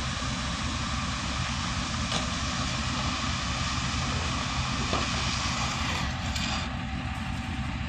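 Concrete truck's diesel engine running steadily with a low hum, with a couple of faint knocks over it.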